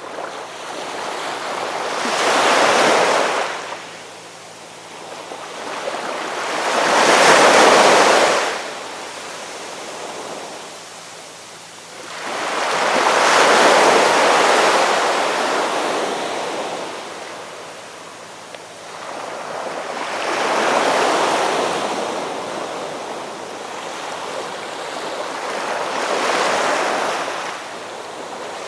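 Ocean waves breaking and washing ashore. Five surges come in a slow rhythm, about every five or six seconds, each swelling up and falling away.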